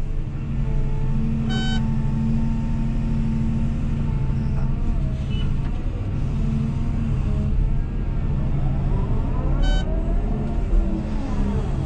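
Cat 323F excavator's diesel engine running under load from inside the cab, with the hydraulics' pitch gliding up and down near the end as the boom and bucket move. Two short electronic beeps from the cab's beeper sound, one about a second and a half in and one near the end.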